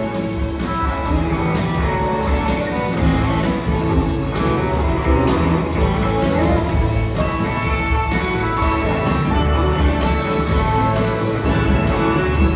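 Live rock band playing together with a full symphony orchestra, electric guitar prominent over a steady drum and bass beat and sustained orchestral notes, heard from the audience in a concert hall.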